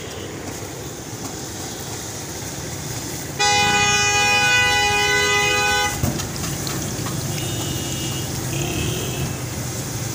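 A vehicle horn blares for about two and a half seconds, starting about three and a half seconds in and cutting off sharply. It sits over a steady background hiss.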